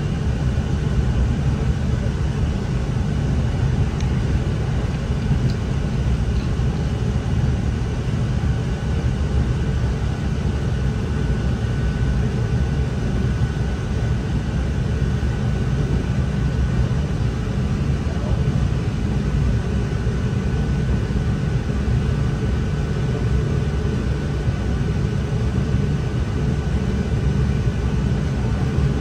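Steady running noise inside a NI Railways Class 3000 (C3K) diesel multiple unit under way: a low, even rumble from the diesel engine and the wheels on the rails, with a faint steady high whine.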